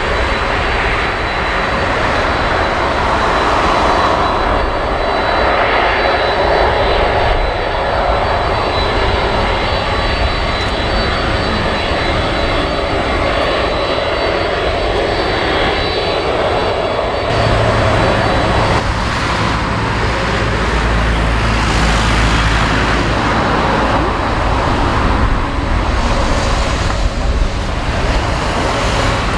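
Jet engines of a Boeing 767-300 freighter at taxi power, a steady whine and rush as the aircraft taxis onto the runway. About 17 seconds in, a heavier low rumble sets in.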